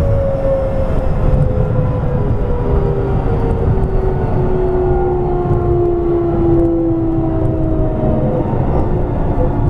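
Keio 8000 series electric train running, heard from inside the passenger car: a steady rumble of wheels on rail with the traction motors' whine slowly falling in pitch as the train slows.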